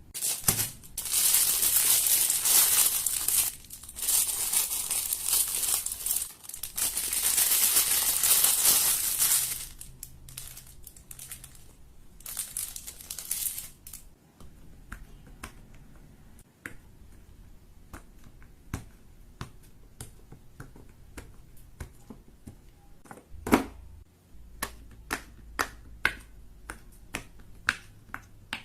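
Fidget toys being handled: dense crinkling and crackling for about the first ten seconds, then a run of sharp separate clicks, about one a second near the end.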